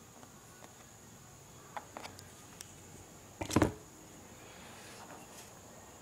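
Handling noises on a desktop: a few light clicks, then one louder knock about three and a half seconds in, over a faint high hiss.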